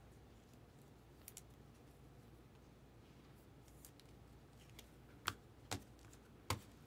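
Trading cards in clear plastic sleeves and holders being handled: faint light ticks of plastic, then three sharp taps in the last second and a half as they are set down.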